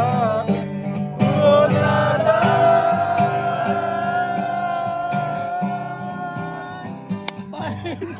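A Hindi song with acoustic guitar: a singer holds one long note over strummed guitar, and the music fades out near the end.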